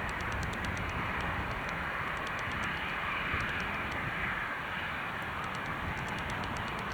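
Jet aircraft engines running steadily with a broad rushing roar, mixed with wind gusting on the microphone as a low, uneven rumble.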